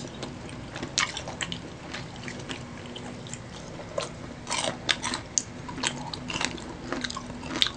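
Close-miked chewing of crispy fried chicken skin: irregular crisp crunches and wet mouth sounds.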